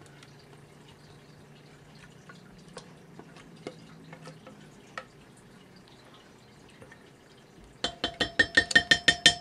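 Thick cream-soup and ranch mixture plopping and dripping softly from a plastic bowl onto chicken and potatoes in a crock pot. Near the end a spatula scrapes out the plastic bowl in quick, even strokes, about five a second, with a pitched squeak on each stroke.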